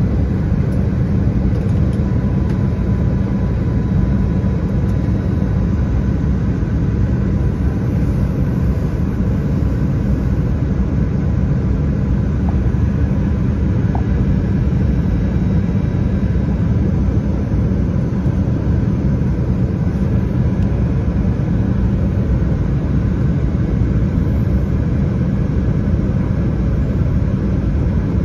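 Airliner cabin noise in flight: the steady low rumble of the engines and airflow, heard from inside the cabin.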